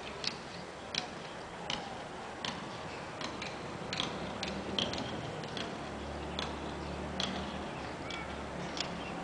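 Regular light ticking, a little faster than once a second, over a steady background hiss; a low hum comes in about six seconds in.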